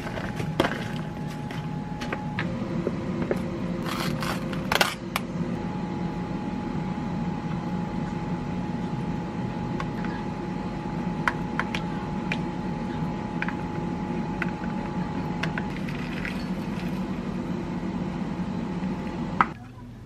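Light clicks and taps from handling plastic and glass kitchenware over a steady low hum with a faint held tone. The sound cuts off after a sharp click near the end.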